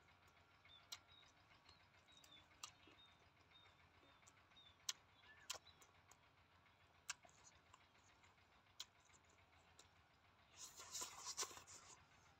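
Faint eating sounds from hands tearing roasted rat meat and from chewing: scattered soft clicks and smacks, with a denser burst of chewing noise about ten and a half seconds in.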